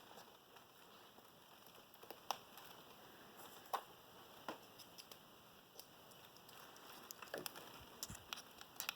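Faint, scattered clicks and light taps of small metal tools being handled: Allen wrenches being picked up and tried for size on a padlock's screw.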